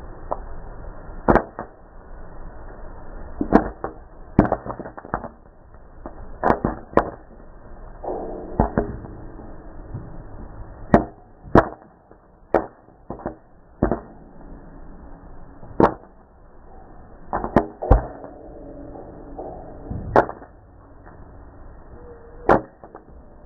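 Popcorn kernels popping in a hot stainless steel pan: sharp single pops at irregular intervals, about one every second or two, with the odd pair close together, over a steady low hiss.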